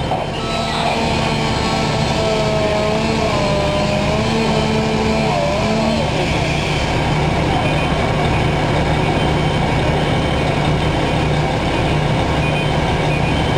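Fire apparatus engine running steadily, a loud constant low hum. For about the first six seconds a wavering pitched sound sits over it, then stops.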